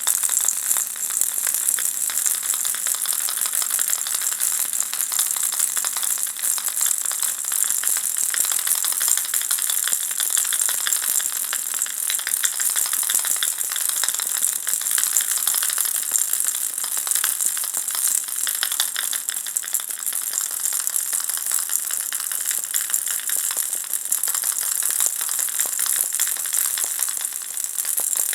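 Ball-shaped baby rattle shaken continuously: a dense, steady, bright rattling of many fine clicks.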